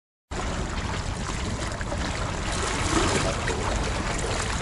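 Silent at first, then about a third of a second in a steady rushing sea ambience cuts in: water washing among the concrete tetrapods of a breakwater, with a low rumble underneath.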